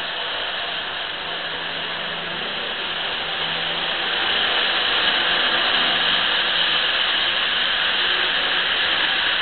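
Model trains running on a layout: a steady whirring rattle of the trains' motors and wheels on the track. It gets louder about four seconds in, as a train passes along the near track.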